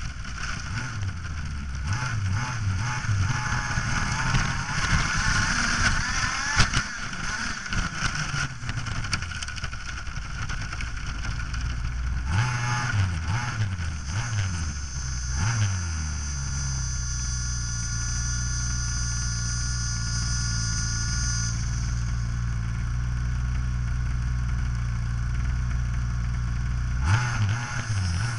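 Radio-controlled car's engine heard from on board, revving up and down as the car drives over rough grass, with knocks from the bumps. It then settles into a steady idle while the car stands, and revs again near the end.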